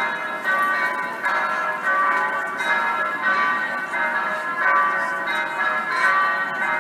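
Electronic church bells, a loudspeaker simulation from an eight-bell set tuned in B, ringing a continuous peal. Several bells strike in quick, overlapping succession and keep ringing on together.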